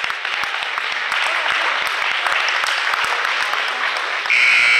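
Gym crowd applauding, with many sharp claps. About four seconds in, a loud basketball scoreboard buzzer starts, a steady high tone.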